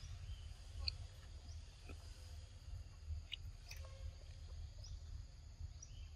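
Faint outdoor ambience: a steady low rumble with a few scattered short, high chirps and thin clicks.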